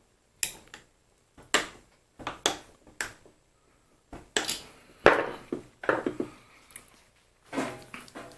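Small steel lathe parts knocking and clinking as they are handled and set down, an irregular string of sharp metallic strikes with short ringing; the loudest comes about five seconds in.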